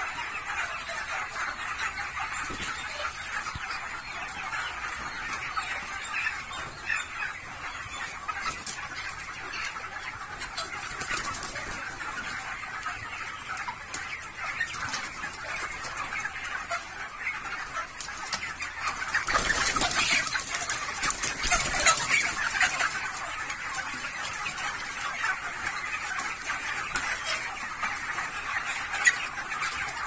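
A large flock of broiler chickens calling continuously, many birds at once in a steady dense chatter, swelling louder for a few seconds about two-thirds of the way in.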